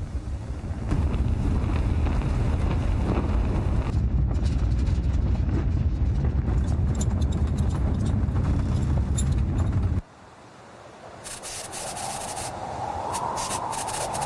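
Sound design for the Perseverance capsule's plunge through the Martian atmosphere in NASA's landing animation: a deep, steady rumble that cuts off abruptly about ten seconds in. A quieter hiss follows, with crackling clicks and a faint hum slowly rising in pitch.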